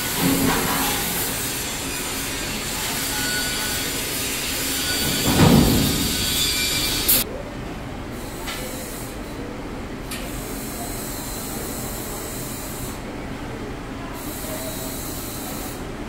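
Workshop machinery noise, a steady hiss and rumble, with a loud thump about five and a half seconds in; about seven seconds in it cuts suddenly to quieter workshop background with a few faint short clicks.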